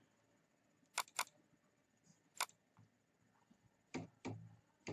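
Computer keyboard keys tapped one at a time while code is edited: about six short, faint clicks, a close pair about a second in, one near the middle and three near the end.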